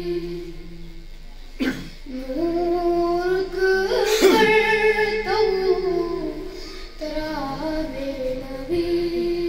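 A boy singing a Kashmiri naat, amplified through a microphone and PA system, holding long wavering notes that slide between pitches.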